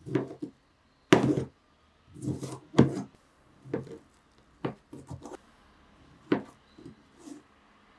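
Kitchen knife cutting a block of bacon into thick slices, the blade knocking down onto a plastic cutting board in about ten uneven thuds.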